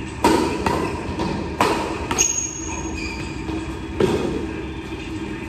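Badminton rackets striking a shuttlecock in a fast doubles rally, several sharp hits that echo in a large hall, with a short high squeak just after two seconds in.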